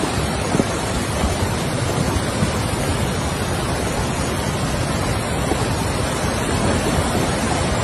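Muddy floodwater rushing in a fast, turbulent torrent, a loud and steady wash of water noise.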